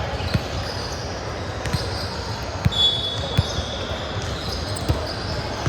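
A ball thumping on a hard court floor about five times at irregular intervals, with a short high squeak about three seconds in, over the steady noise of a large hall.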